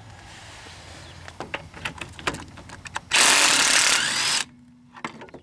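Half-inch Ryobi impact driver hammering a shock absorber's bottom bolt loose, in one loud burst of a little over a second about three seconds in, after a few small clicks.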